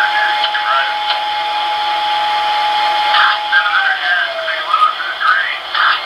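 Digital sound decoder in a model SD40-2 diesel locomotive playing its diesel sound through the model's small speaker. A steady high whine glides down in pitch about three and a half seconds in, with short bursts of noise about a third of a second in, just after three seconds and near the end.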